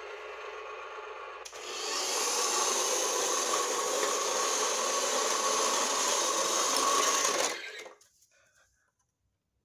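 Plastic toy tow truck rolling across a hard floor with a second toy vehicle in tow, its wheels and gearing making a steady gritty whirring. It gets louder about a second and a half in and stops near the end.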